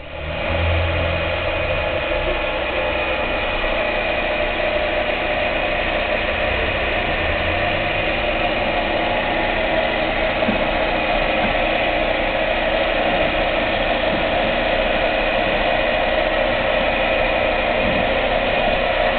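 Industrial quilting machine running steadily: a continuous mechanical whir and hum with a constant high tone over it.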